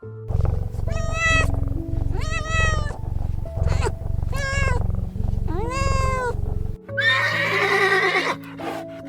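A cat meowing five times in short separate calls over background music, followed about seven seconds in by a longer, rougher animal call.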